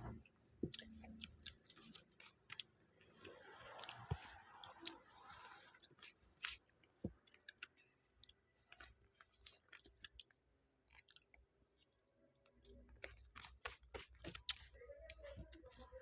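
Close-up chewing of a mouthful of fried rice with noodles: soft, wet mouth clicks and smacks scattered irregularly, with a brief rustly stretch a few seconds in.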